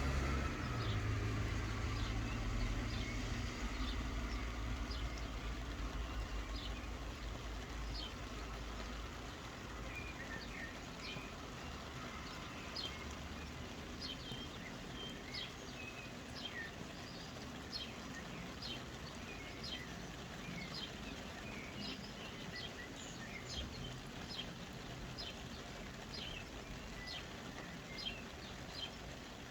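A passing vehicle's rumble fades away over the first several seconds, leaving a steady hiss of soft rain with birds chirping in many short, quick notes throughout.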